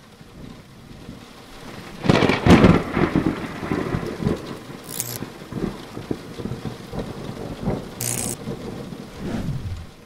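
Thunderstorm sound effect: rain with rolling thunder, building to a loud thunderclap about two seconds in, then further rumbles with two short sharp crackles, fading out near the end.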